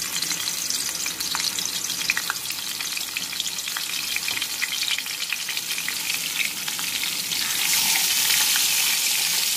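Rohu fish head halves sizzling and crackling as they fry in hot mustard oil in a steel kadai. The sizzle grows louder near the end as the second half goes into the oil.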